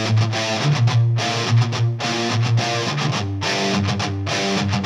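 Background music led by guitar, with a steady rhythm.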